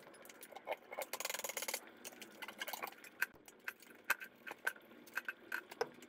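Metal tire tools clinking and tapping against the steel manual tire changer and wheel rim: a string of light, irregular clicks. A short hiss sounds about a second in.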